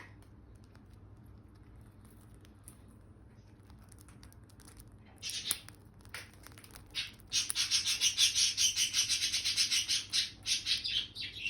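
Indian ringneck parrot calling: a short high call about five seconds in, then from about seven seconds in a fast run of repeated high chattering notes, about seven a second.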